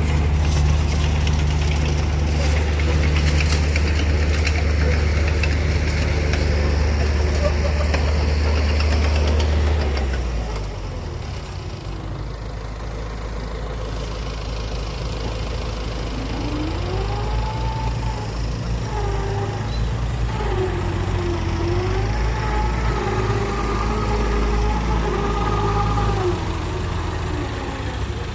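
Heavy engine of a dump truck or excavator running steadily, dropping to a lower, quieter idle about ten seconds in. In the second half a wavering pitched whine or tone rises and falls over the engine.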